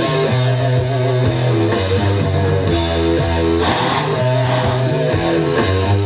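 Rock music with electric guitar: held bass notes that change about once a second, with crashes of cymbal now and then.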